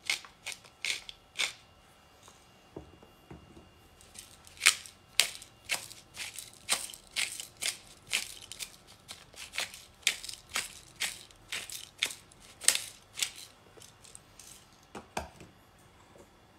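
Hand-twisted salt and pepper mills grinding, each twist a short crunching rasp. There are a few turns at the start, then a pause. A steady run of turns follows at about two a second for roughly nine seconds, and a couple more come near the end.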